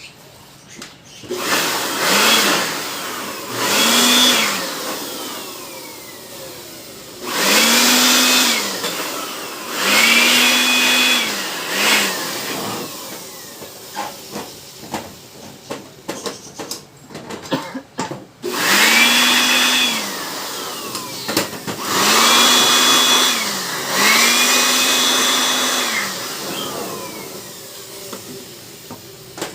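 Small electric motor tool switched on and off in about seven short bursts, each spinning up, running briefly and winding down, with an airy whoosh.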